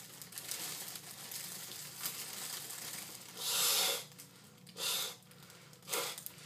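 Gold foil (Mylar) helium balloon crinkling and rustling as it is held and squeezed at the mouth, with a loud hiss of breath drawing helium out of it about three and a half seconds in. Two shorter bursts of noise follow near the end.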